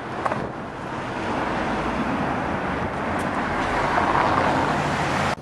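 Road traffic noise: the steady rush of a vehicle on the street, growing louder, then cut off suddenly near the end.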